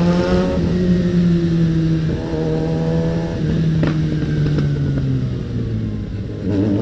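Suzuki Bandit 650N's inline-four engine through a loud aftermarket exhaust while riding. The revs fall at the start, hold and shift through the middle, then climb again near the end.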